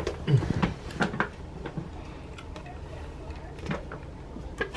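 A red plastic-lidded container being opened by hand, with scattered clicks as the packaging and lid are worked. A short murmur of a voice about a third of a second in.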